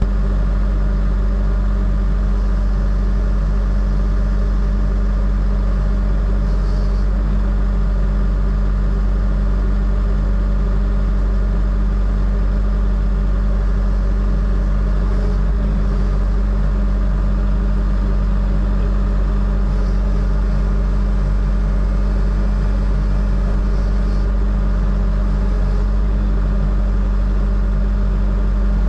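Engine of a heavy digging machine running steadily at a constant throttle, a deep, even hum that steps up in level right at the start and holds flat until it drops off near the end.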